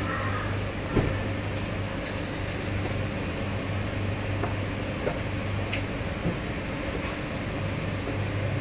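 Steady low background hum with a sharp click about a second in and a few faint ticks later.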